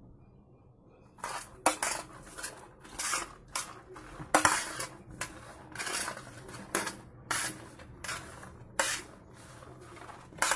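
Boiled, hulled soybeans being stirred and pushed across a baking tray by hand, mixing in sprinkled tempeh starter. Repeated scraping and rattling strokes start about a second in, with a few sharper clicks against the tray.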